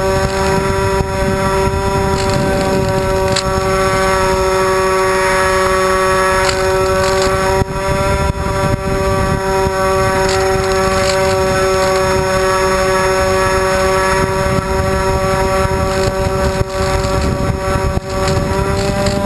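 Twin D2826-6 2200 kV brushless motors spinning 6x4 propellers on a small FPV plane in flight, a steady buzzing drone at a near-constant pitch over a low rushing noise, heard from a camera mounted on the plane.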